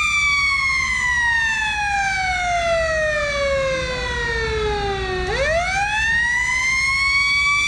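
Warning siren sounding ahead of the power plant implosion: a steady high tone that slides slowly down in pitch for about five seconds, then quickly rises back up.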